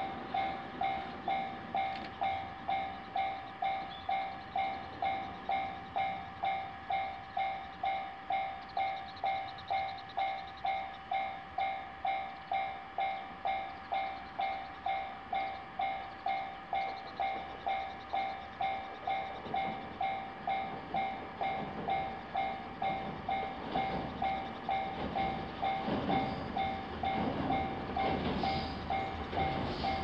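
Japanese level-crossing electronic warning bell ringing steadily, about two strokes a second. From about twenty seconds in, an approaching diesel railcar's rumble builds and grows louder toward the end.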